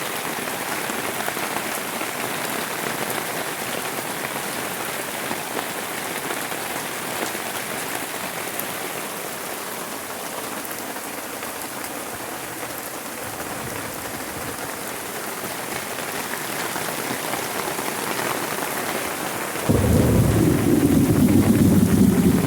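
Heavy rain pouring steadily in a significant rainstorm. About twenty seconds in, a sudden loud, low rumble of thunder breaks in and carries on to the end.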